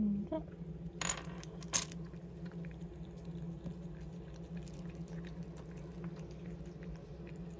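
A ceramic cat-food dish clinks twice against a wooden tabletop about a second in, then a cat eats wet food from it, with faint, quick little chewing and lapping clicks. A steady low hum runs underneath.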